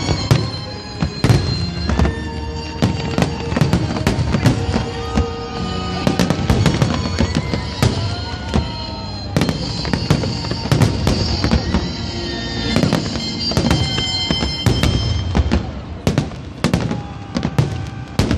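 Fireworks display: shells bursting in rapid, irregular bangs and crackles, with music playing underneath.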